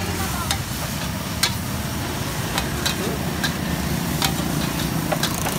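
Metal spatula clinking and scraping against a wok as food is stir-fried, with irregular sharp strikes about once or twice a second over the steady sizzle of the food frying.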